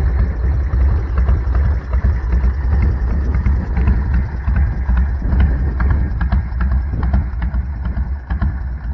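Big Dog chopper's V-twin engine idling through its aftermarket pipes with an uneven, loping beat, settling down from a rev in the first second.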